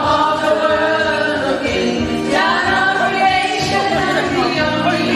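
Music: a group of voices singing together, with accompaniment.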